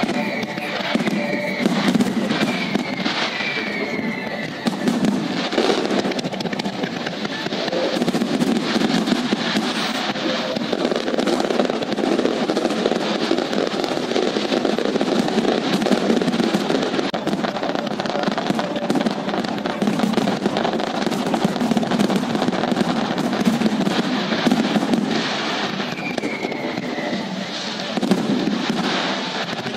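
Fireworks display, with aerial shells bursting in many sharp bangs in quick succession.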